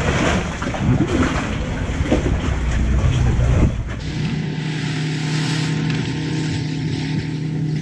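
Small boat's engine running with splashing water and wind noise. About four seconds in the sound switches abruptly to a steadier, even engine drone with a hiss over it.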